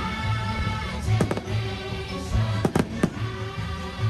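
Aerial fireworks bursting over the show's music soundtrack: a pair of sharp bangs about a second in and another pair about two and a half seconds in, with the music sustained underneath.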